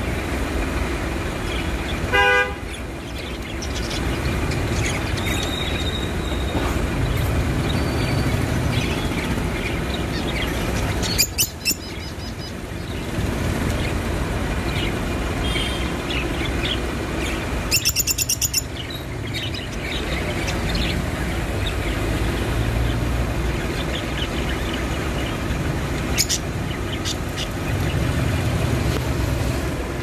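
Pet budgerigars chirping and chattering in short high calls over a steady low rumble of street traffic. A short toot sounds about two seconds in, and brief louder bursts of high calls come twice later on.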